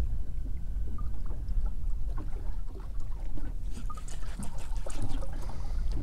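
Water lapping and sloshing against the hull of a small fishing boat, over a steady low rumble. Light splashes and ticks come more often in the second half.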